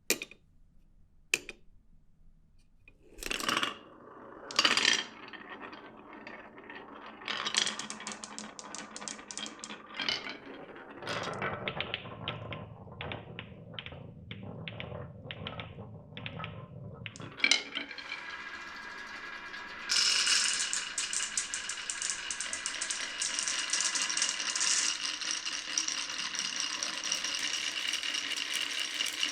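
Glass marbles running down a wooden marble run. There are separate clicks and knocks in the first few seconds. Around the middle, marbles roll with a low rumble and a quick string of clicks. From about two-thirds of the way in, many marbles clatter together in a dense, continuous rattle.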